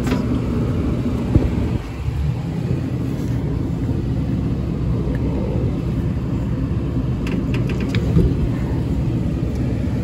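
Steady low rumble with a few sharp clicks and knocks, once about a second in and as a short cluster near the end. The clicks come from a new V-belt being worked onto the air conditioner's blower motor pulley.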